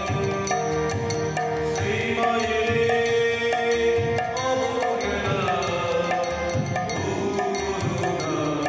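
Devotional kirtan: a man singing a chant-like melody over a harmonium's held reed chords, with a khol drum and small brass hand cymbals (kartal) keeping a steady beat.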